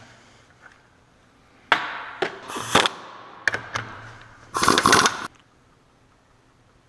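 Metal tools and differential parts being handled on a workbench: a few sharp clinks and knocks, then a longer clattering scrape about four and a half seconds in.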